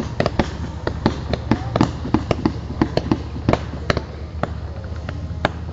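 Fireworks display: aerial shells bursting and crackling in a quick, irregular series of sharp bangs and pops, several a second.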